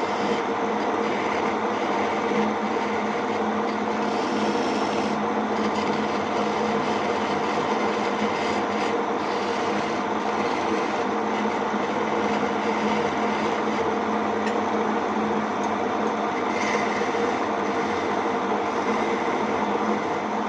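Homemade wood lathe running steadily: a continuous motor hum at a constant pitch, with no change in speed.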